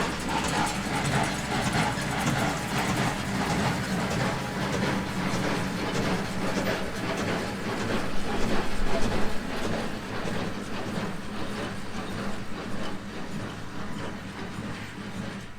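John Deere 6120R tractor running with a Massey Ferguson 1840 inline square baler working behind it: a steady engine drone under a rhythmic mechanical clatter. It grows a little quieter near the end.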